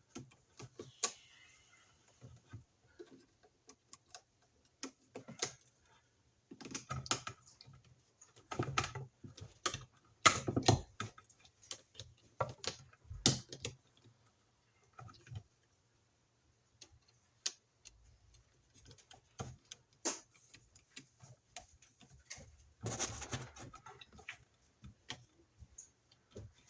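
Irregular small clicks, taps and scrapes of hand work on an electrical outlet: a screwdriver on the terminal screws and stiff wires being bent and handled, in short clusters with brief pauses.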